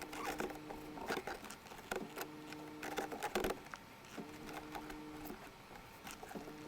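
Faint scattered clicks and knocks of plastic console parts being worked into place, with a soft low hum that comes and goes three times.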